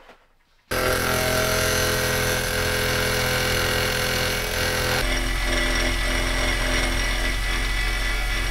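Benchtop milling machine running steadily, its spindle driving a cutter into a finned heat-sink block held in the mill vise. It starts about three-quarters of a second in, and its tone shifts about five seconds in.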